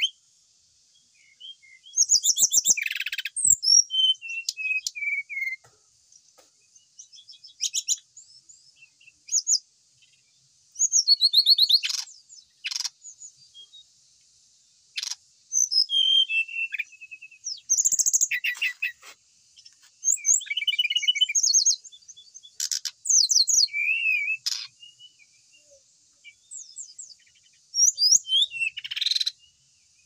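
A caged sikatan rimba dada coklat, a jungle flycatcher, singing short bursts of rapid, high, trilling notes with pauses of a second or so between them. One phrase is a falling run of notes.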